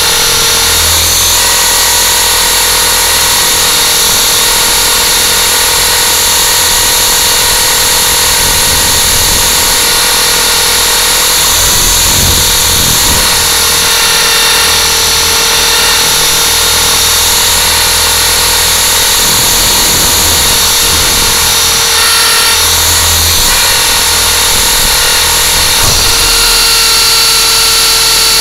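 Battery-electric motors and rotors of a small RC aircraft hovering, heard up close from its onboard camera: a loud, steady whine made of many tones, with small changes in the low end as it manoeuvres.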